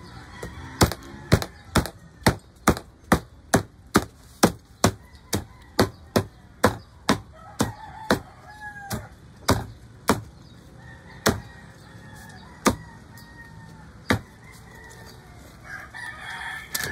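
Meat cleaver chopping roast pork on a plastic cutting board: sharp strikes about two a second for some ten seconds, then three slower strikes. Short bird calls in the background, twice.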